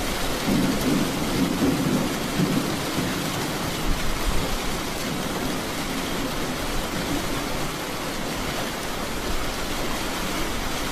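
Steady rain hissing, with a low rumble of thunder rolling through the first few seconds.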